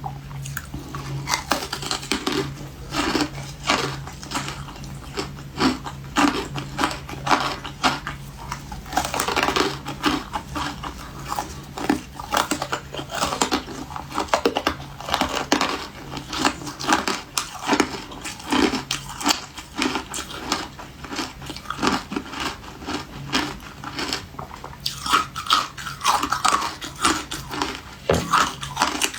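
Refrozen ice being bitten and chewed close to the microphone: a steady run of sharp, irregular crunches, several a second.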